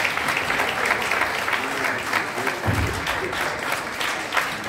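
Audience applauding steadily, with a few voices in the crowd and a single low thump in the middle.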